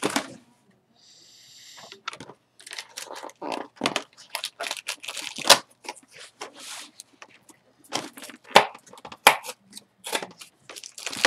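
Cardboard door of an advent calendar box being pushed in and torn out along its perforations, with the box handled and shifted: irregular crackling and tearing of cardboard, with several sharp cracks in the second half.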